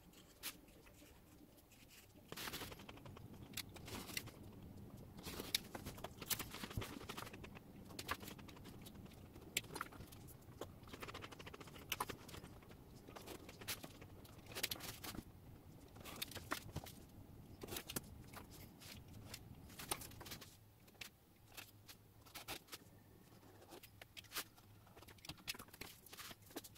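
A craft knife cutting through an EVA foam floor mat, with hands moving a steel ruler and paper templates. It comes as faint, irregular scratches, clicks and tearing sounds, busiest from about two seconds in until about three-quarters through, then sparser.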